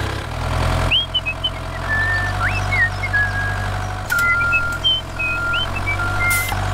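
Steady low engine drone of a tractor, likely added to the toy tractor's footage. Thin high whistled notes glide upward and then hold above it. The sound changes abruptly about a second in and again about four seconds in.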